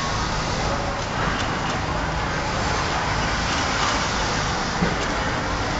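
Steady machine din of a garment-factory sewing floor with industrial sewing machines running, with a single sharp click about five seconds in.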